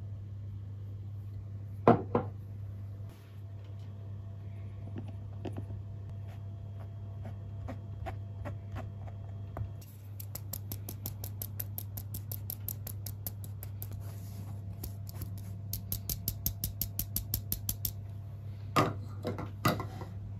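Flour being sifted through a fine-mesh metal sieve into a glass bowl. A sharp knock comes about two seconds in. From about halfway the sieve is shaken in a fast, even rattle of about four to five strokes a second, with a short pause. A few louder knocks come near the end. A low steady hum sits underneath.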